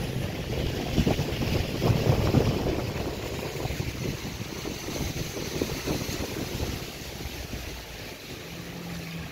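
Wind buffeting the phone's microphone while it moves, a gusty rumble that eases off over the last couple of seconds.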